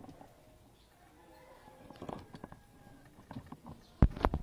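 Footsteps on a stone-tiled floor, faint at first, then a few sharp loud taps near the end.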